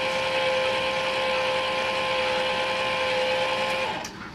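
Fifth-wheel trailer's powered front landing gear running with a steady whine as it lowers the front to level the trailer. The whine cuts off near the end.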